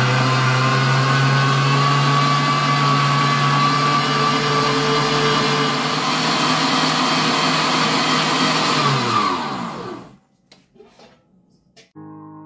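Electric meat grinder running steadily under load as it grinds meat, with a strong motor hum. About nine seconds in it is switched off and winds down, its pitch falling. A few faint clicks follow, and piano music starts near the end.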